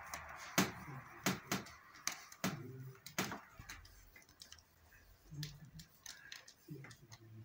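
Marker pen scratching and tapping on paper while writing in cursive, a string of short strokes with a pause in the middle.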